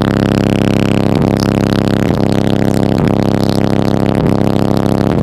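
Bass-heavy music played loud through a car's aftermarket sound system, heard inside the cabin, with sustained tones and a beat about once a second.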